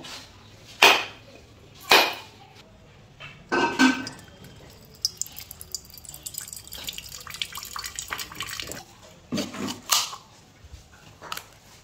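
A whole coconut being cracked open with a heavy curved knife: sharp knocks of the blade on the hard shell, then coconut water trickling and dripping into a steel bowl from the split, and another knock near the end as the shell is split further.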